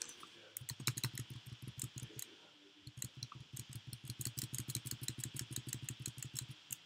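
Rapid clicking of computer keyboard keys in two quick runs, with a short pause about two seconds in.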